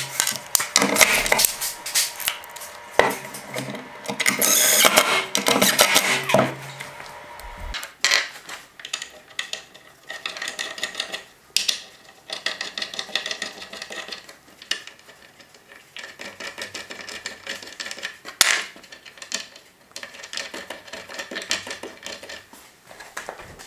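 Metal brackets, bolts and tools being handled on a workbench: clattering, scraping and sharp knocks, busiest in the first several seconds, then sparser handling clicks.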